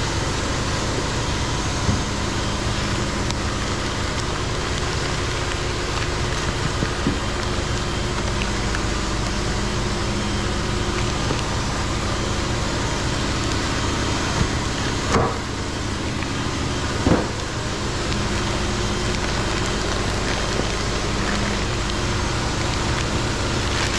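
Steady machine-shop noise from a Fanuc Robodrill CNC mill running a cutting cycle: a constant hum with a few held tones. Two short knocks come a couple of seconds apart past the middle.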